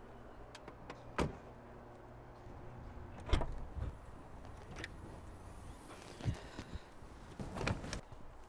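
A few knocks and thuds of a car being handled, the doors or hatch opened and shut, over a low steady hum. The loudest pair of thuds comes about three seconds in.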